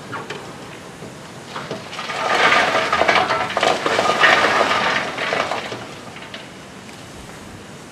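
Coal clattering down a hopper chute into a steam locomotive's bunker: a dense rattle of lumps that starts about two seconds in and dies away after about five and a half seconds.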